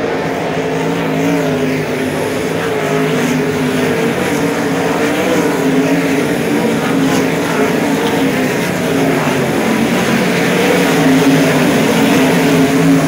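A field of 410 sprint cars' methanol V8 engines running laps on a dirt oval, a steady, wavering drone of many engines together that grows louder as the pack comes past near the end.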